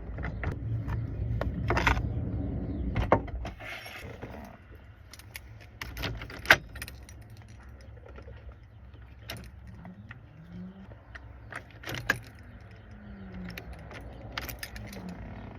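Light metallic clicks and clinks of hand tools and loose parts being worked on a steering column, scattered and irregular, with the sharpest click about six and a half seconds in.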